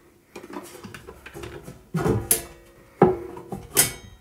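Handling noise inside an opened DAC's metal chassis as a DC cable is pushed aside: soft rustling, then three sharp knocks, about a second apart, the first two ringing briefly.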